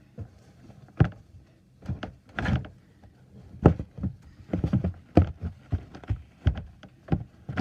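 Plastic storage container being wiped out with a wet disinfectant wipe: irregular knocks and thumps as the box is handled and bumped on the surface, with short stretches of rubbing.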